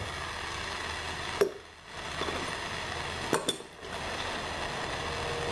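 Steady rushing hiss from the heating tool softening a plastic EVAP hose. It is interrupted twice by short drops, and sharp clicks and taps come about a second and a half in and again near three and a half seconds as the hose is worked against the fitting.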